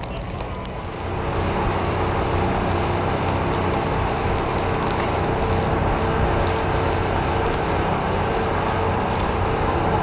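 Steady street traffic noise with a steady engine hum, getting louder about a second in and then holding level.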